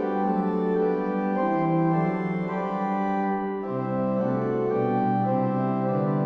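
Pipe organ playing held chords on the great division's 8-foot Principal and 4-foot Octave stops together: the principal tone doubled by a rank sounding an octave above unison. The chords change every couple of seconds, with the bass stepping lower partway through.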